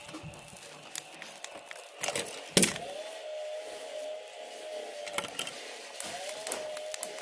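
A LEGO train's small electric motor whining steadily. It spins up with a short rising whine after a sharp click, stops, then spins up again near the end. Smaller clicks and handling knocks are heard in between.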